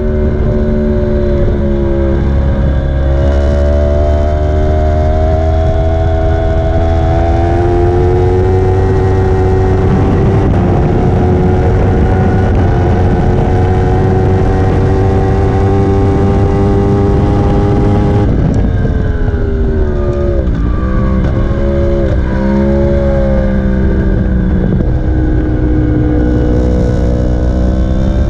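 Sport motorcycle engine heard from onboard at high speed on a race track, its note climbing steadily under full throttle along the straight over heavy low wind rush. About 18 seconds in the throttle shuts for braking, followed by several quick dips and recoveries in pitch as it downshifts, then a steadier note through the corner.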